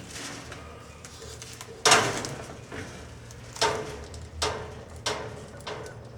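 A series of sudden knocks or bangs over a low steady hum: one loud one about two seconds in, then four weaker ones a little over half a second to a second apart.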